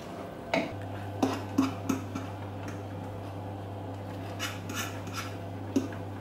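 Kitchen utensils scraping and knocking against metal saucepans as freshly boiled pasta is stirred and tossed on the hob, a few sharper clinks among the scraping, over a steady low hum.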